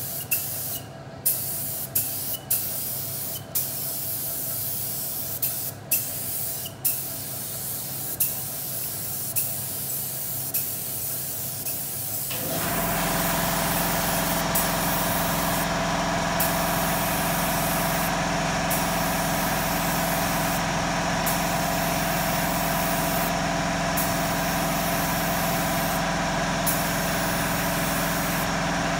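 DeVilbiss SRi Pro Lite spray gun hissing as leather paint is sprayed in repeated passes, the hiss cutting out briefly each time the trigger is let off. About halfway through, a louder steady motor hum starts and keeps running: the air compressor feeding the gun cutting in.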